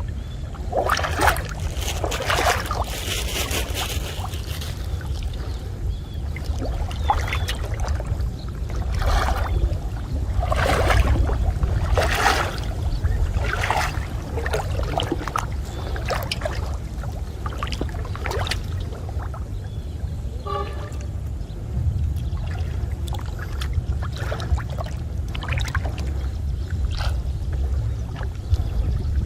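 Water splashing and sloshing in irregular strokes every second or two, over a steady low rumble.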